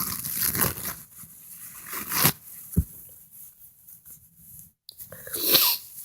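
A person sneezing, in sudden forceful bursts: one just after the start, a sharp one about two seconds in, and a louder voiced one a little after five seconds. A brief low thump comes just before three seconds.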